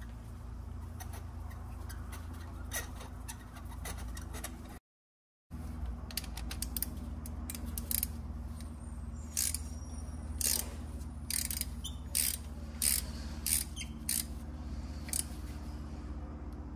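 Ratchet wrench clicking in slow, separate strokes as a 14 mm spark-plug socket on an extension tightens a new spark plug into a BMW B58 engine. A steady low hum runs underneath, and the audio cuts out completely for about half a second before the clicking starts.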